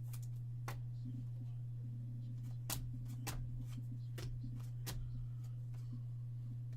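Trading cards being handled and flipped through, with about half a dozen short, sharp clicks and snaps of card stock, over a steady low electrical hum.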